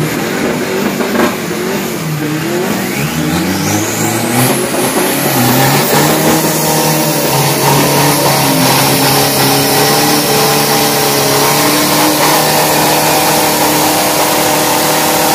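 Turbocharged 2.5-litre pickup engine blipped up and down, then held at steady high revs for a burnout with the rear tyre spinning. A high whistle rises steeply about three to four seconds in.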